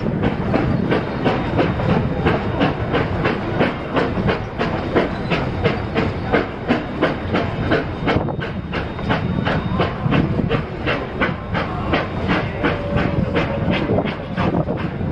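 Narrow-gauge passenger train rolling along the track: the car's steel wheels click sharply and regularly over the rail joints, about four clicks a second, over a steady rumble and rush of air.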